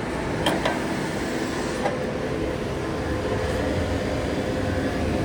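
A moving train runs with a steady rumble, with faint steady hum lines and a few light clicks and knocks.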